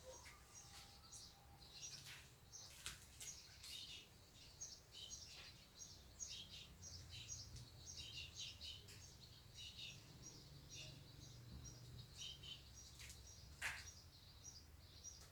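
Faint chirping of small birds: many short, high chirps in quick succession, with a single sharp click near the end.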